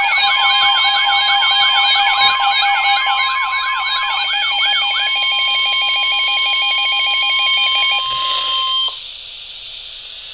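Several emergency alert tones sounding together, warbling and steady, heralding a severe thunderstorm warning. The warbling stops about halfway through and the steady tones cut off a few seconds later.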